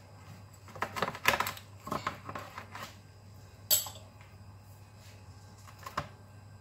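A pizza-cutter wheel cutting through the crisp, flaky crust of a freshly baked bread on a metal baking tray: a run of crackly clicks and short scrapes for about two seconds, then one sharp scrape near the middle and a single click near the end.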